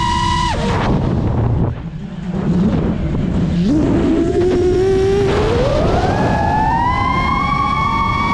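FPV quadcopter's brushless motors whining over a steady rush of propeller wash. The pitch drops sharply as the throttle is cut about half a second in, stays low, then climbs back up in two stages to a steady high whine by about seven seconds in.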